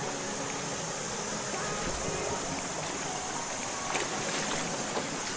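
Shallow river running over rocks in small rapids: a steady rushing hiss of flowing water, with a few brief louder moments about four seconds in.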